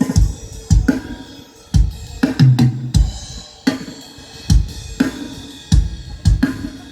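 Acoustic drum kit played in a steady groove for a sound check, mixed live through a digital console: kick drum and snare hits under a wash of cymbals, with a short fill on a low, pitched drum about two and a half seconds in.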